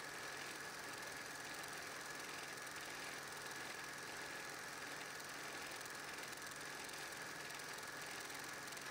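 Steady mechanical whir of a film projector running silent 8mm home-movie film, with a constant high whine and a faint regular pulse.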